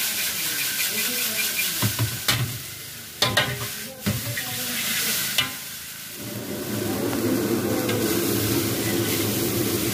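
Chowmein noodles sizzling in a hot wok while a metal utensil stirs and tosses them, with several sharp knocks of metal on the pan in the first half. From about six and a half seconds in, a steady low roar takes over, fitting the gas burner flaming high under the wok.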